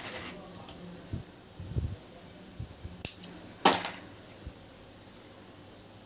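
A few sharp clicks and light knocks from handling beading materials off-camera, the loudest click about three and a half seconds in.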